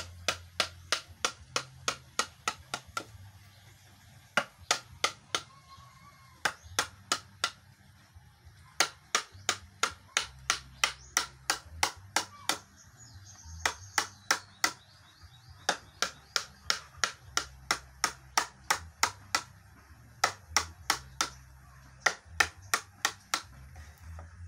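A hammer tapping a carving gouge into hardwood, hollowing out the cups of a wooden sungkaan board. It goes in quick, even sharp knocks, about three a second, in runs with brief pauses between them.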